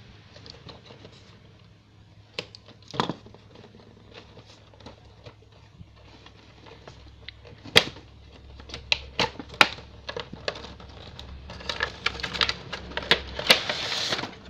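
Cardboard toy box being opened by hand and its clear plastic blister tray pulled out: scattered clicks and taps of cardboard flaps, with a denser crinkling of plastic near the end.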